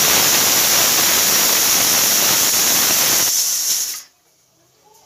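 Pressure cooker whistle: the weight valve lifts and vents steam in a loud, steady hiss that cuts off suddenly about four seconds in. It is the whistle (seeti) that tells the cook the dal has boiled.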